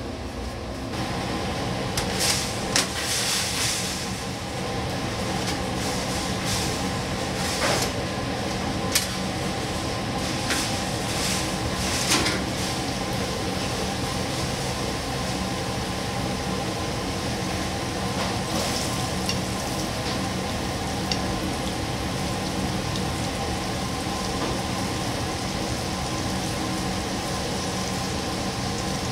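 Cinnamon rolls deep-frying in a commercial fryer: hot oil bubbling and sizzling steadily over a constant machine hum. There are several sharp clicks and knocks between about two and twelve seconds in.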